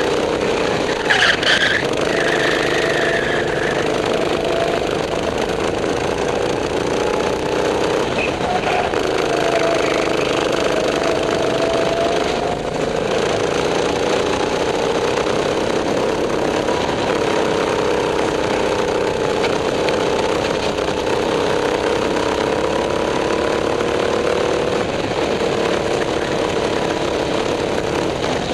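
Go-kart engine running under load, heard from the driver's seat, its pitch rising and falling with the throttle through the corners. A brief high squeal about a second in.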